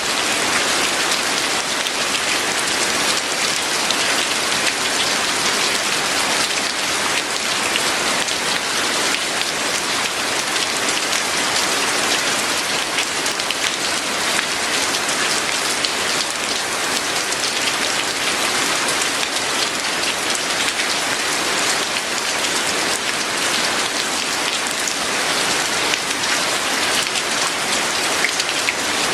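Steady rain falling, a dense even hiss with many individual drops pattering on a surface.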